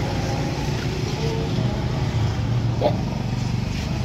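An engine running steadily at an even low hum, with a short, sharper sound a little under three seconds in.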